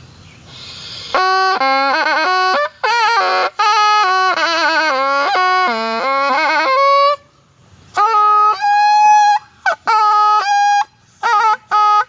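Thai pi, a reed oboe, played solo: a melody of ornamented, wavering notes in long breaths, breaking off about seven seconds in and then going on in shorter phrases.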